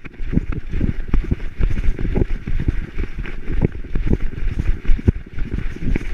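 Dog running over dry fallen leaves, heard through a GoPro strapped to its back: quick, uneven thuds of paws and of the jostling camera mount, over a steady rustle of leaves.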